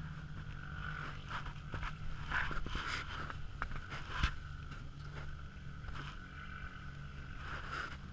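Off-road dune buggy's engine running steadily, heard from inside the cab, with scattered knocks and rattles; the sharpest knock comes about four seconds in.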